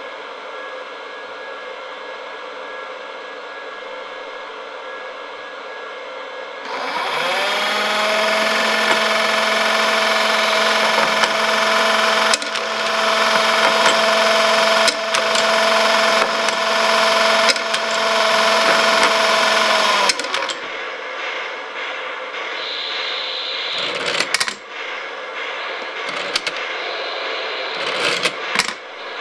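Lionel 164 log loader's electric motor spinning up with a quickly rising whine about seven seconds in, running steadily with a loud gear whine, and cutting off suddenly about twenty seconds in. After it comes a scatter of clicks and clunks as the wooden logs are dropped into the car.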